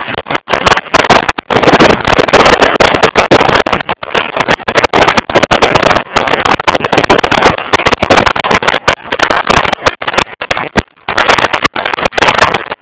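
Wind buffeting the microphone of a bike-mounted camera at road speed: a loud, choppy rush of noise that keeps cutting in and out.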